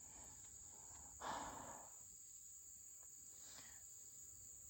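Near silence with a steady high-pitched chirr of crickets, and a soft breath a little over a second in.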